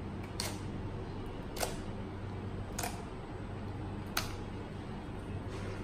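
Clear glitter slime being squished and pressed with the hands, giving short popping clicks as air pockets in it burst, five times about a second and a bit apart, over a steady low hum.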